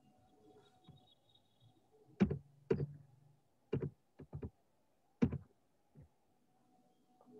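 A handful of sharp knocks and thumps, irregularly spaced, with a short low hum under the first two.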